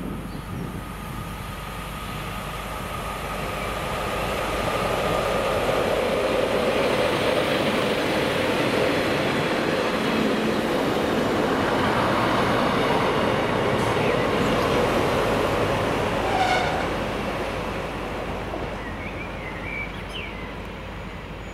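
Northern diesel multiple unit passing close by on the rails. Its running noise swells over a few seconds into a loud steady rumble, holds, then fades, with a brief squeal about two-thirds of the way through.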